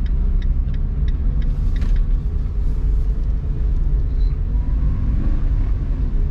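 Car engine and road noise heard from inside the cabin as the car drives along: a steady low rumble, with the engine note drifting slightly higher in the second half.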